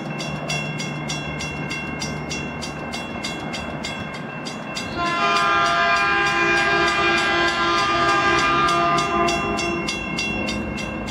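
Railroad crossing bell ringing steadily at about five strokes a second. About five seconds in, the horn of an approaching Metrolink train sounds one long blast of several tones at once, lasting about five seconds and louder than the bell.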